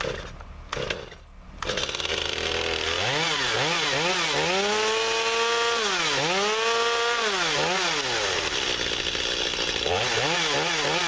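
Stihl MS 250 two-stroke chainsaw cold-starting in sub-freezing weather: after two short bursts it catches about a second and a half in and keeps running. The throttle is blipped up and down several times, then it runs steady, and is revved again near the end.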